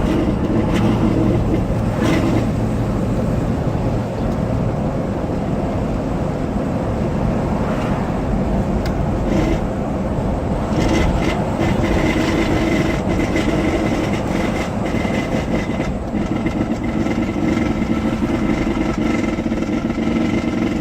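2005 Cadillac Escalade under way, with steady road and drivetrain noise and a loud intermittent hum or whine that kicks on and off only while the vehicle is moving. The hum comes on strongly about ten seconds in, fades, then returns for the last few seconds.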